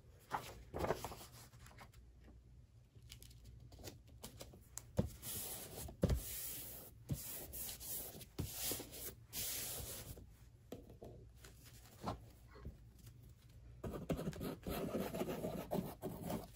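Hands rubbing and smoothing a sheet of paper down onto a glued board: soft paper rustling and rubbing, with a few light knocks as things are picked up and set on the table.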